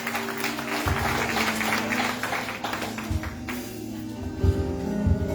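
Applause over music with bass and drums; the clapping dies away about three and a half seconds in while the music carries on.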